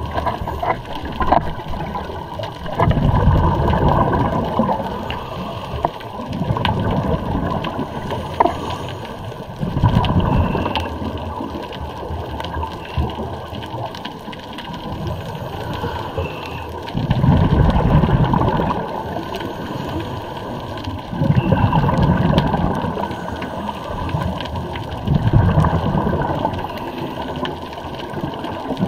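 Scuba diver's regulator underwater: exhaled air bubbling out in gurgling rushes every few seconds, with softer breathing noise between them.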